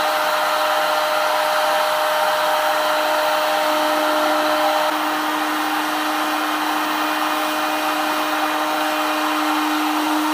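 Electric heat gun running steadily, a rush of blown air with a steady hum from its motor, heating a PVC pipe to soften it for bending.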